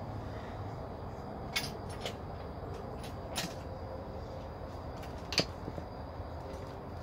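A few sharp clicks and knocks of tools and hardware being handled in a car's engine bay during an engine swap, the loudest about five seconds in, over a steady low hum.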